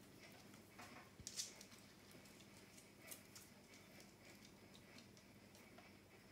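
Near silence: room tone with a few faint rustles and clicks, the loudest about a second and a half in.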